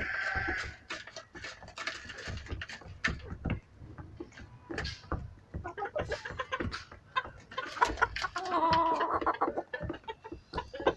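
Chickens clucking and calling, with many short taps and knocks in between. A high call comes right at the start, and a longer, lower call about eight to nine and a half seconds in.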